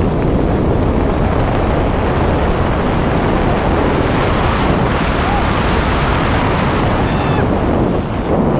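Wind rushing over the camera microphone during a tandem parachute descent under an open canopy, a loud, steady low rumble.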